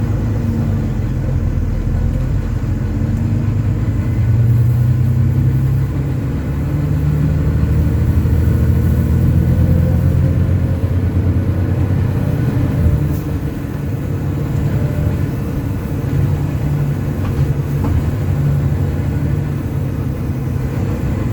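Volvo B9TL double-decker bus's six-cylinder diesel engine droning under way, heard from inside the bus. The revs rise and fall, louder through the middle, with a single sharp click about thirteen seconds in.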